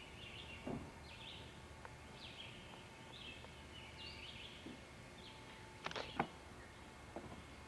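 Small birds chirping over and over, short high calls that mostly fall in pitch. A few sharp knocks break in, the loudest a quick cluster about six seconds in.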